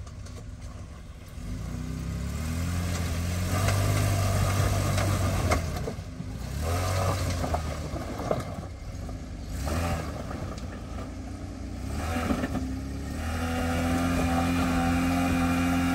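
Jeep Wrangler's engine revving in repeated surges under load as it crawls over large rocks, the revs rising and dropping back several times and held high near the end, with a few short knocks.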